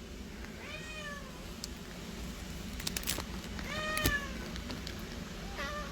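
Domestic cat meowing three times: a call about a second in, a louder one around four seconds, and a short one near the end, with a few sharp clicks in between.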